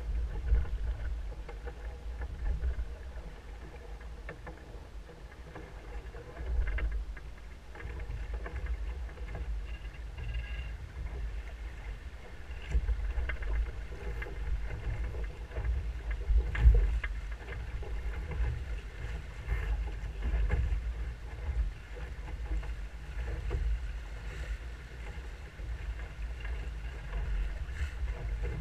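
Water rushing and slapping along the hull of a Musto Skiff sailing dinghy under way, over a low rumble of wind on the microphone, with a few short thumps.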